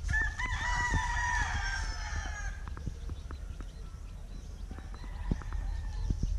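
A rooster crowing: one long crow of about two and a half seconds that sags slightly in pitch at the end, then a fainter crow about five seconds in.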